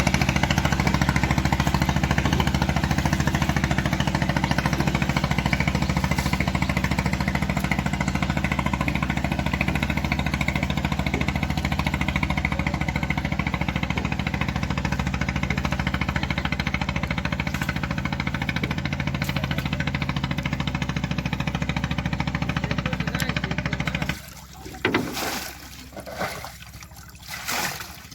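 Engine running steadily with a dense low hum, cutting off abruptly near the end; a few short splashes of water follow.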